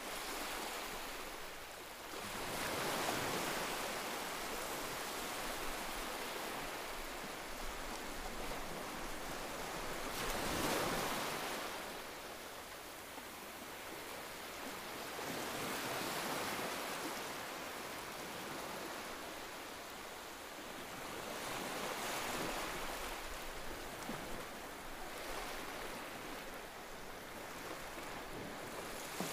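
Steady rushing noise, like wind or surf, that swells and eases every five or six seconds.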